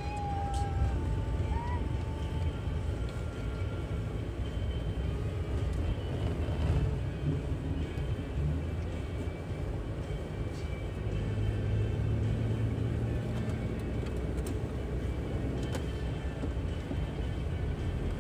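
Car engine and road noise heard from inside the cabin while driving at a steady town pace: a continuous low rumble.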